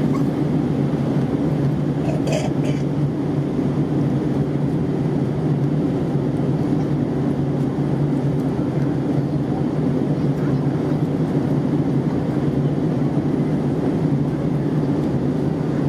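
Airbus A320 jet engines and airflow making a steady, unbroken roar with a low drone, and a few faint clicks about two seconds in.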